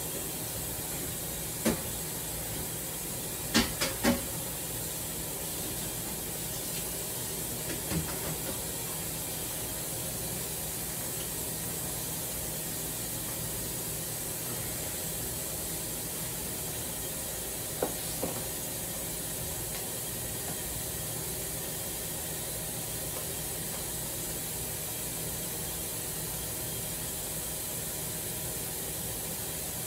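Steady hiss with a faint low hum from a kitchen stove where a pot of greens is cooking. It is broken by a few sharp knocks: one about two seconds in, a quick cluster of three about four seconds in, one about eight seconds in and a pair about eighteen seconds in.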